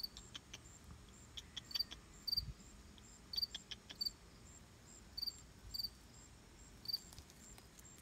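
Short, high-pitched chirps repeating irregularly, often in quick pairs, with fainter, higher chirps and a few light ticks between them.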